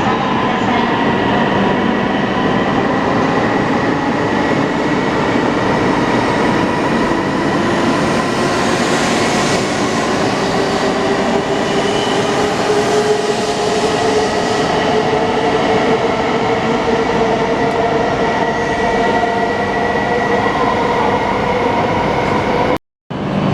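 Shinkansen bullet train moving slowly at the platform: a steady rushing rumble with an electric motor whine whose tones drift slowly in pitch. The sound drops out abruptly for a moment near the end.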